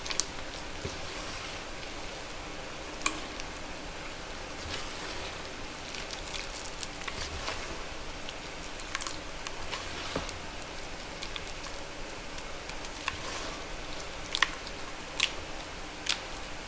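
Magnesium carbonate gym chalk wet with water, crackling and popping: a steady fine crackle with a few sharper pops scattered through.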